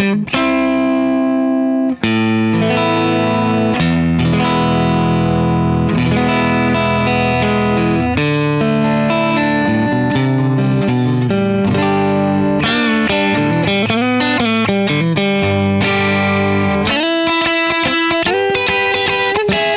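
Leo Jaymz Monsoon electric guitar played through an amplifier with the neck and single-coil pickups selected: ringing chords and strums, with a passage of bent notes about two-thirds of the way through.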